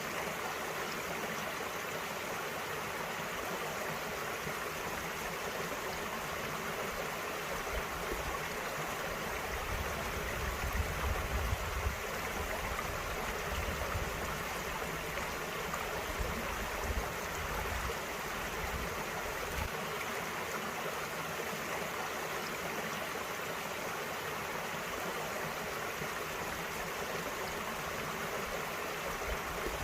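Small valley stream flowing and gurgling steadily over rocks, with a low rumble coming and going around the middle.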